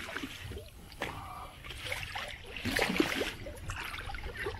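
Water splashing and sloshing beside a boat's hull as a hooked false albacore thrashes at the surface, in a few irregular splashes.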